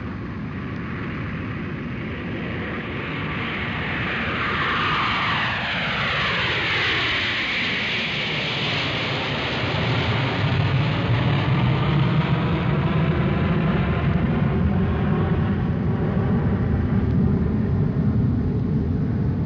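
Airplane flying overhead: its noise builds steadily, a whining tone falls in pitch as it passes about five seconds in, and a low rumble then swells and holds as it moves away.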